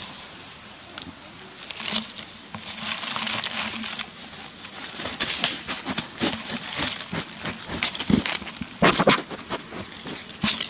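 Close rustling and crackling as a goat stands over the camera and brushes against it on leaf-covered ground, with a louder scuff about nine seconds in.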